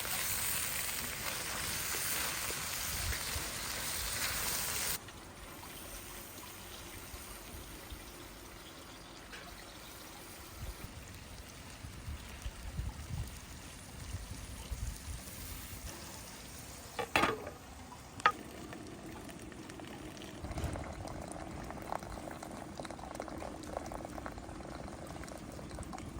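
Beef sauté sizzling and bubbling in a saç pan: a loud hiss that cuts off abruptly about five seconds in, then quieter sizzling with two sharp knocks a second apart near the middle.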